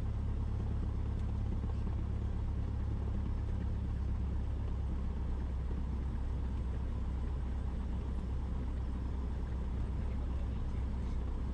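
Cessna 172's engine and propeller running at low taxi power, a steady low drone heard from inside the cabin.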